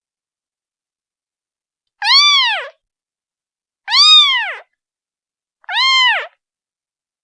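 A day-old kitten meowing for its mother: three high, thin meows about two seconds apart, each rising and then falling in pitch.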